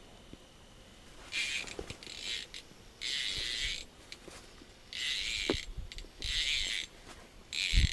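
A fishing reel cranked in five short bursts with a whirring, clicking mechanism, as a hooked bluegill is reeled up through the ice.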